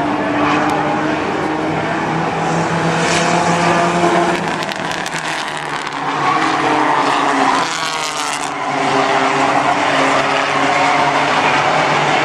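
Compact race car engines running hard around the track, their pitch rising and falling as the cars accelerate and back off through the turns.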